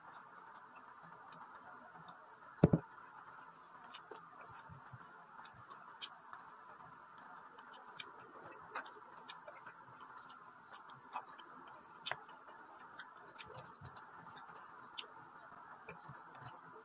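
Close-up eating sounds: a man eating rice and stew by hand, chewing with many small, irregular clicks over a faint steady hiss. One loud knock on the wooden board about three seconds in, as a bowl of rice is turned out onto it.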